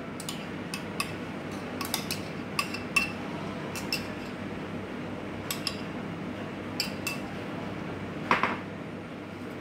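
Metal spoon clinking and scraping against a ceramic bowl while scooping thick avocado sauce, a dozen or so light clinks at irregular intervals, with a louder clatter near the end.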